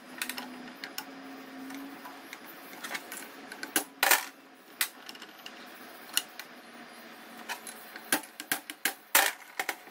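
Hammer and punch tapping the inner CV joint cup of a Ford Focus driveshaft held in a vise, to drive the cup off the tripod rollers: irregular sharp metallic taps and clinks, the strongest about four seconds in and a cluster near the end.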